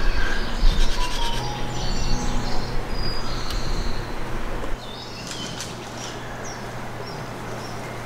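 Wild birds chirping: short, high, scattered calls. In the first half they sit under a low rumble, which cuts off abruptly a little past halfway and leaves the chirps over a quieter, steady background.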